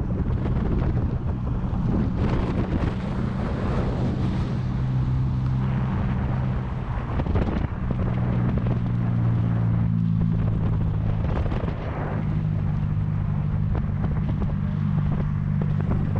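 A motor running steadily with a low drone that shifts slightly in pitch, under wind rushing over the microphone.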